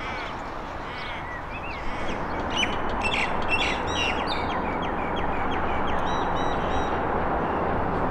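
Several birds calling with many short, repeated calls and chirps, busiest in the middle, over a steady rushing background.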